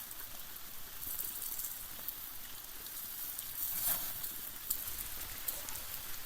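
Freshly cut meat sizzling as it fries, a steady hiss with scattered small crackles and pops.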